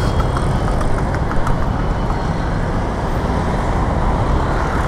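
Steady city road traffic noise: vehicle engines and tyres running on a busy street, with no single event standing out.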